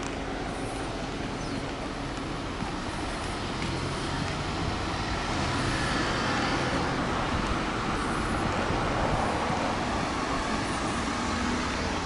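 Road traffic noise: a car passing on the street alongside, its tyre and engine noise swelling through the middle and easing off near the end.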